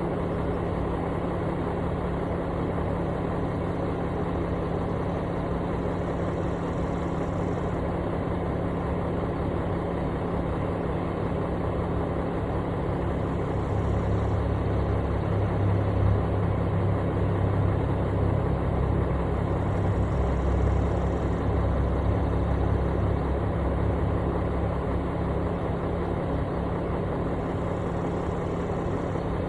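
Construction machine's engine running steadily, louder and heavier for about ten seconds in the middle, then settling back.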